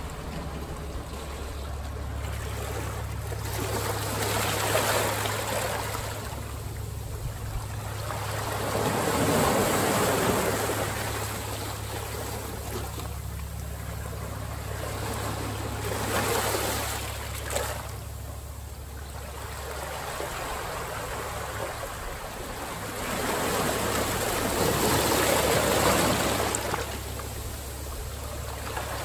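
Ocean surf breaking and washing in, swelling and ebbing every several seconds, over a steady low rumble of wind on the microphone.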